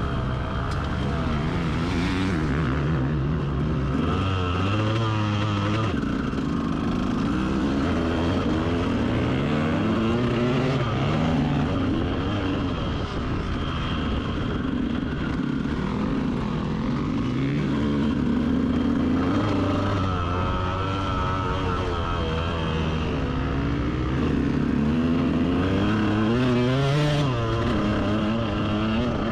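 Dirt bike engine heard from on board the bike, revving up and falling back again and again as it is ridden hard around a motocross track, its pitch climbing and dropping every few seconds.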